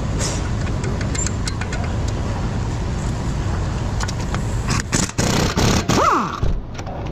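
Cordless impact wrench driving in a hand-started bolt on a car's front wheel hub, running in short choppy bursts for about two seconds near the end, its whine falling as it stops, over a steady workshop background noise.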